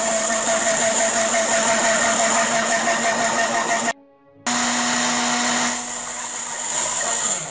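Black+Decker countertop blender running, puréeing tomatoes, onion and chiles with a little water. It stops for about half a second around four seconds in, then starts again and winds down at the end.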